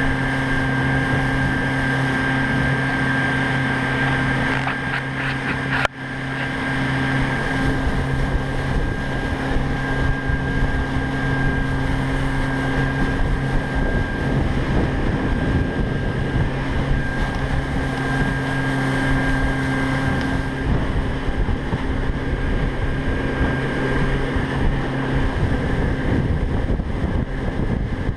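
Honda 90 four-stroke outboard motor running steadily at speed, pushing a small boat, over wind buffeting the microphone and the hiss of spray from the wake. A brief break about six seconds in.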